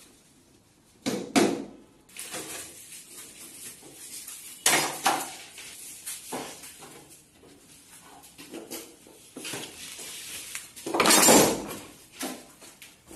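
Irregular knocks and clatter of wooden strips, boards and tools being handled during carpentry work, with one longer, louder noise lasting under a second about eleven seconds in.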